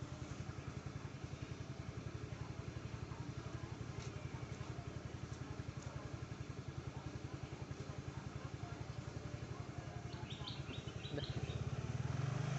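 Motor scooter's small engine idling with a steady low pulse. A little after eleven seconds it gets louder as the throttle opens. A few short high chirps come just before that.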